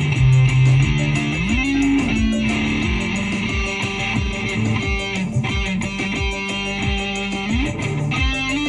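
Electric guitar music: held notes that slide up in pitch about a second and a half in and again near the end, over a steady low pulse.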